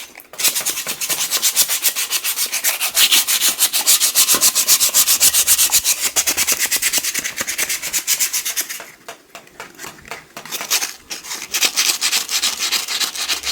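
Sandpaper being rubbed by hand over a bicycle part to prepare it for repainting, in quick rhythmic back-and-forth strokes that ease off briefly about nine seconds in and then resume.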